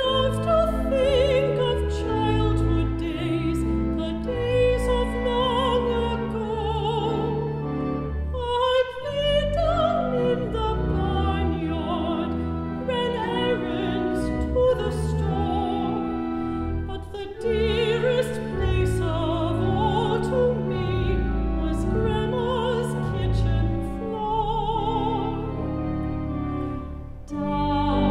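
Mezzo-soprano singing a sentimental popular song with vibrato, accompanied by sustained organ chords, with short breaks between phrases.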